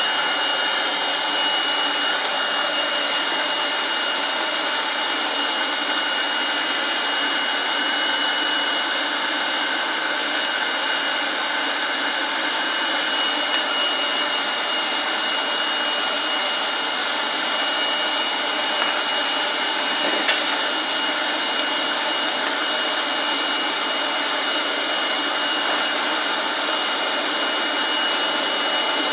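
Air pump blowing into a wood-fired forge, a steady rushing of air with a thin, constant high whine.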